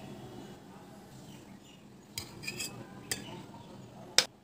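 Metal spatula clinking against a pan and a ceramic plate as a piece of fried fish is lifted out and set down. A few light clicks come in the second half, then one sharp clink near the end.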